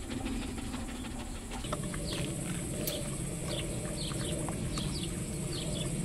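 Outdoor yard ambience: birds chirping in short, irregular calls over a steady high insect drone and a low background rumble.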